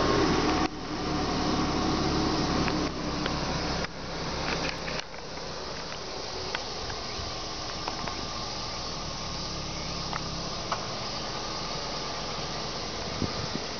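Steady background hiss with camera handling: louder, with a low hum, for the first few seconds and dropping in steps, then a quieter even hiss with a few faint ticks.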